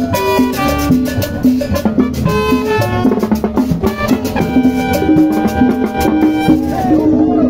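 Upbeat Latin dance music with percussion keeping a steady beat under a melody of held notes.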